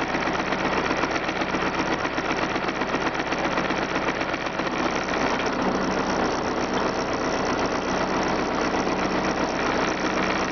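Engine running steadily at a constant speed, with a fast, even pulsing and no revving.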